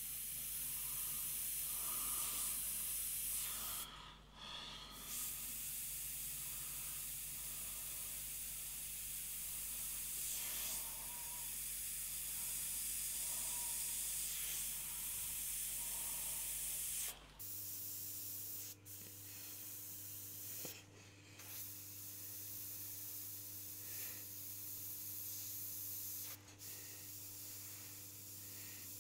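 Iwata Custom Micron CM-C airbrush spraying paint: a steady hiss of air and atomised paint, with a few short breaks.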